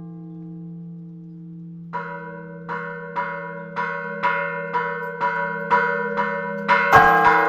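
Church bells ringing. A large bell's hum lingers and fades, then from about two seconds in a smaller bell strikes quickly, about two strokes a second, over the continuing hum. Near the end a louder, fuller stroke comes in.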